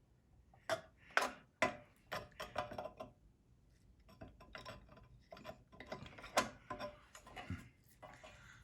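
Scattered sharp clicks and light knocks of small metal and plastic parts being handled and fitted together as the ERV blower motor is put back together, with faint rattling between; the loudest clicks fall about a second in and again past the middle.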